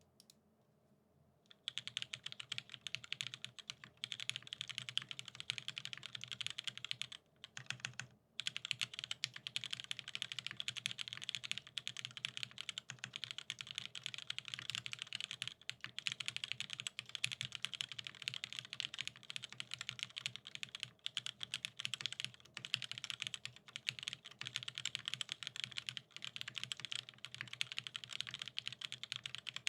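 Fast, continuous typing on a keyboard: a dense stream of key clicks that starts about a second and a half in, with two brief pauses around seven to eight seconds in.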